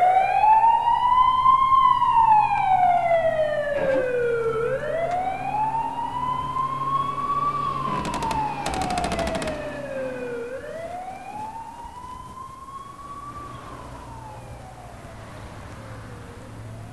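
Emergency vehicle siren wailing: its pitch slowly rises and falls about every six seconds, three times over, and it fades away over the last few seconds.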